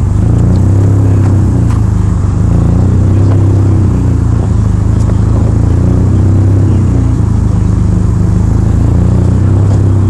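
Ford Sierra RS Cosworth's turbocharged 2.0-litre four-cylinder engine idling steadily through a large-bore exhaust tailpipe, loud and deep with a slight regular lope.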